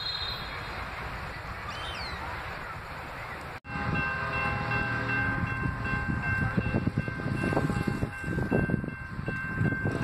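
A steady outdoor hiss with one brief bird call gives way abruptly, about a third of the way in, to a train horn sounding a long, steady chord over a low rumble.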